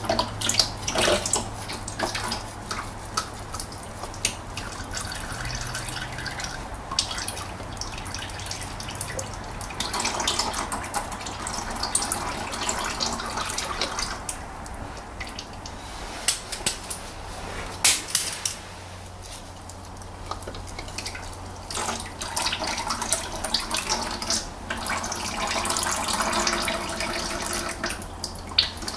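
Engine oil draining steadily from the open sump into a drain pan, with a few sharp knocks from the wrench on the oil filter, the loudest about 18 seconds in.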